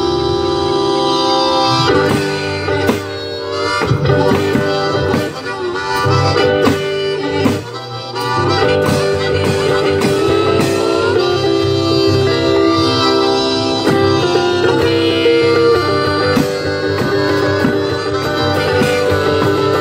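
One-man band playing harmonica over acoustic guitar, with drum strikes from a kit worn on the player's back. The harmonica's held chords are the most prominent part.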